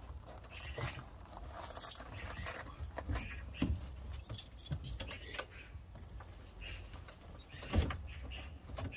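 Small metal objects jingling and clinking as they are handled, with scattered knocks and a louder thump near the end, over a steady low rumble.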